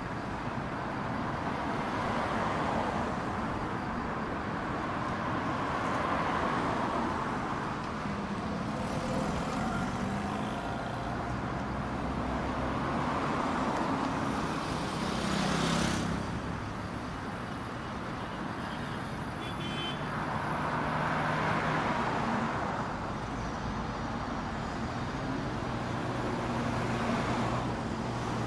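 Street traffic: cars passing one after another, each swelling up and fading away with tyre noise and engine hum, about six or seven passes, the loudest and closest about 15 seconds in.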